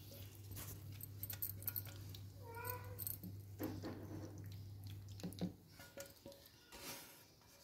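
Red silicone spatula scraping cooked chicken out of a pan into a glass baking dish, with small scrapes and clicks against the pan and glass. A steady low hum runs underneath and stops about five and a half seconds in, and a short high-pitched call sounds once about two and a half seconds in.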